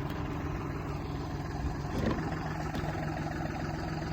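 An engine running steadily at idle, with a brief knock about two seconds in.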